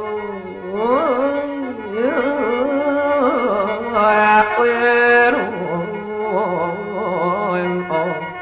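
Isan mor lam (lam long) music: a steady khaen drone under a sliding, ornamented vocal line with drawn-out vowels and no clear words.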